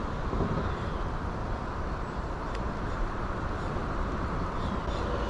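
Wind buffeting the microphone: a steady, low rush of noise.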